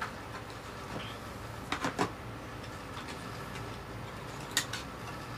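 A black cardboard phone box and its inner tray being handled: a few short knocks and scrapes, a cluster about two seconds in and another near the end, over a faint steady hum.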